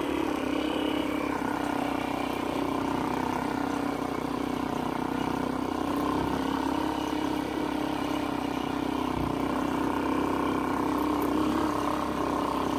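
A small vehicle engine running steadily at a low, even speed, its hum hardly changing.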